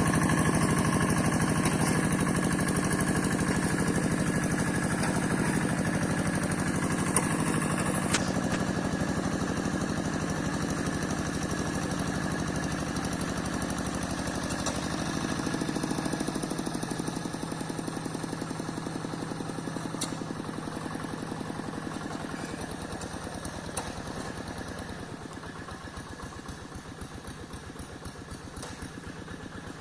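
Single-cylinder diesel engine of a two-wheel hand tractor running steadily, growing gradually fainter, with a few sharp clicks along the way.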